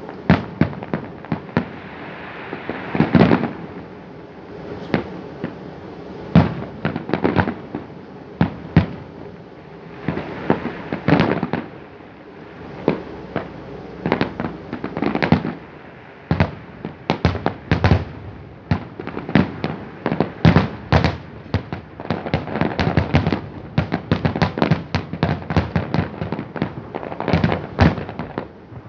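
Aerial fireworks shells bursting in sharp bangs, spaced out at first, then coming thick and fast in quick volleys of crackling reports from about halfway on.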